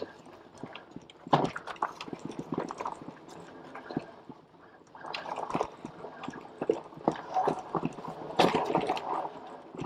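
Fat-tire full-suspension electric mountain bike riding over a rough dirt and sandy trail: irregular knocks, clicks and rattles from the tires, chain and frame. It gets louder and busier from about five seconds in.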